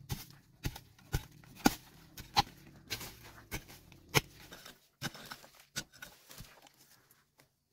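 Narrow-bladed hand hoe chopping into dry, root-filled forest soil to dig out a wild potato tuber: a sharp hit every half second or so, about a dozen strikes, growing fainter after about four seconds.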